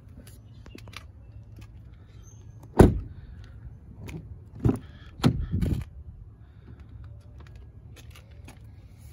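Car door of a 2021 Cadillac XT5 shut with one solid thump about three seconds in. Then the rear door handle is pulled, its latch clicking and knocking as the rear door opens.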